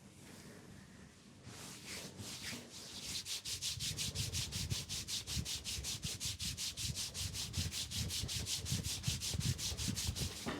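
Hands rubbing fast over skin in a leg massage, a rhythmic friction of about five strokes a second. It starts about a second and a half in, and soft low thumps of the hands on the leg join it from about four seconds in.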